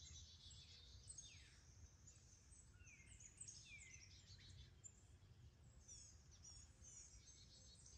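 Faint birdsong from several birds: high chirps and trills, with a few downward-sweeping whistles about three to four seconds in, over a low steady rumble.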